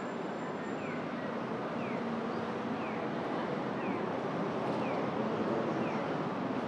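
Steady rushing outdoor noise of rain, canal water and street traffic, with a short falling chirp repeating evenly about once a second.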